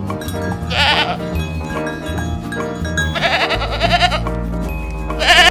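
A goat bleating three times in a quavering voice: a short bleat about a second in, a longer one past the middle, and another short one at the end, over background music.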